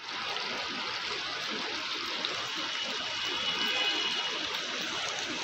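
Sweet and sour masala chicken in its tomato gravy simmering in a pan, with a steady bubbling and sizzling.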